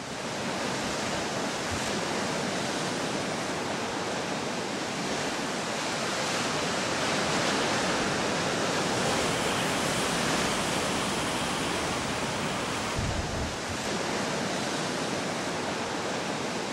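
Sea surf washing over shore rocks: a steady, unbroken rush of noise. A brief low thump comes about 13 seconds in.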